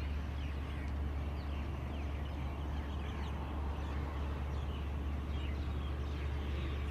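Many birds chirping outdoors, a dense scatter of short, falling calls overlapping one another, over a steady low rumble.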